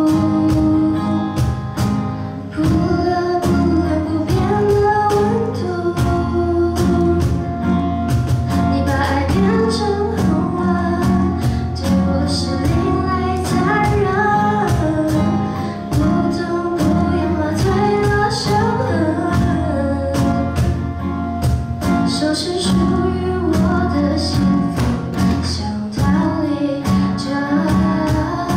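A young woman singing a song into a microphone, accompanied by an acoustic guitar and a steady cajón beat.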